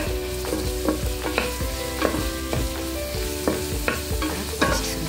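Sliced onion and garlic sizzling in hot oil in a metal pot, sautéed as the base for pancit canton. A wooden spoon stirs them, scraping and knocking against the pot about twice a second.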